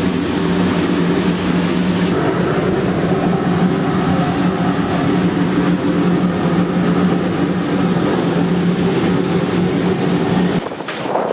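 Running noise inside the cab of steam locomotive 25-026 on the move: a steady loud drone with a low hum under it, which cuts off abruptly near the end.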